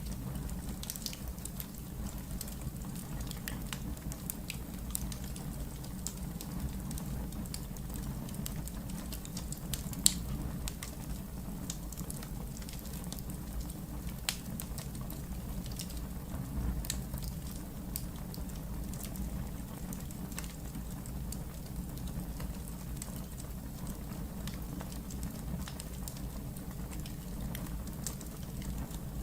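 Wood fire burning in a fireplace: a steady low rumble with scattered crackles throughout and two sharper, louder pops, about ten and fourteen seconds in.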